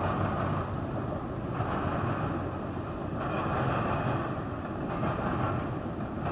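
CN freight train passing at a distance: the steady, even noise of its cars rolling along the rails.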